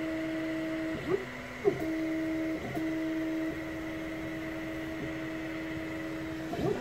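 Longer Ray5 10 W laser engraver's stepper motors whining at a steady pitch as the laser head travels along the gantry while engraving wood, the pitch jumping in a few short sweeps as the head speeds up, slows and changes move. A faint steady high tone runs underneath.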